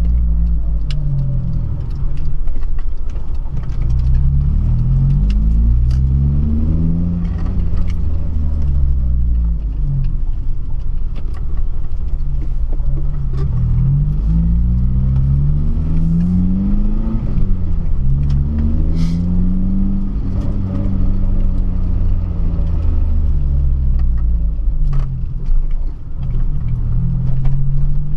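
Honda Civic Si four-cylinder engine accelerating, its pitch climbing over a couple of seconds and falling back again several times as the car is shifted through the gears.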